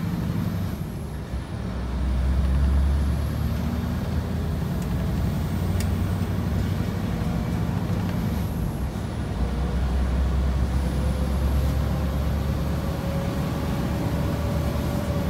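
Scania R730's 16-litre V8 diesel driving a truck under load. The engine note dips briefly twice, about a second and a half in and about nine seconds in, and comes back lower in pitch each time before pulling on. A faint whine rises slowly through the second half.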